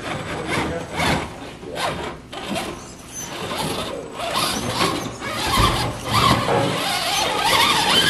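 1/10-scale RC rock crawler working over the course, its electric motor and gears whining with a wavering pitch while the tires scrape and grip on the obstacles.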